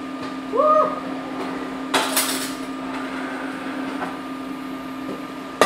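Metal lid on a stainless steel sauté pan clanking: a clatter with a short ring about two seconds in and a sharp clink near the end, over a steady low hum.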